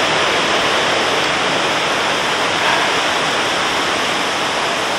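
Strong wind blowing through the woodland trees: a steady, loud rushing hiss.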